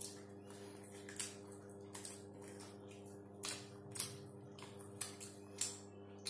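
Faint eating sounds of crispy fried chicken being picked apart and chewed by hand: short crunches and crackles, about seven in all, over a steady low hum.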